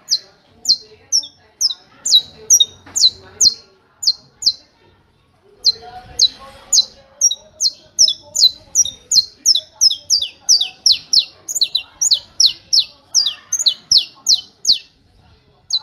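Saffron finch (canário-da-terra) singing the 'martelo' (hammer) song: a long series of short, sharp, downward-sweeping high notes, about three a second. After a brief pause about four and a half seconds in, it resumes faster at about four notes a second.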